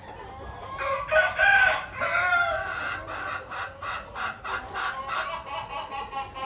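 A rooster crows once, a call of about two seconds, then chickens cluck in a quick, even run of about three clucks a second.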